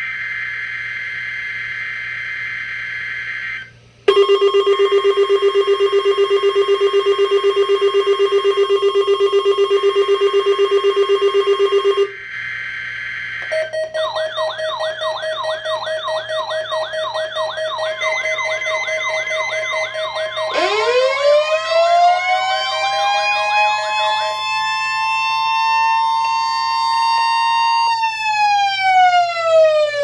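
NOAA Weather Radio SAME data bursts, a raspy digital screech, set off several weather alert radios at once for a Required Weekly Test. A loud, rapid electronic beeping follows, then another short data burst, then warbling siren-like alarm tones from the receivers. Near the end a siren tone rises, holds and falls.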